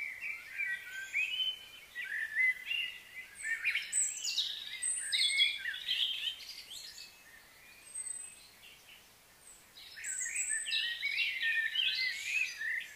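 Birds chirping and singing in quick, overlapping calls, dropping away for a few seconds in the middle before picking up again.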